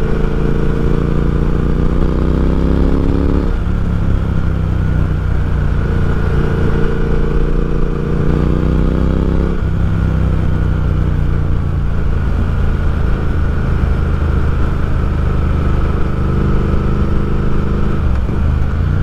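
2019 Triumph Speed Twin's 1200 cc parallel-twin engine running through a Nuke slip-on exhaust while the bike accelerates. The revs climb and drop at an upshift about three and a half seconds in, climb again and drop at another upshift near ten seconds, then hold steady at a cruise.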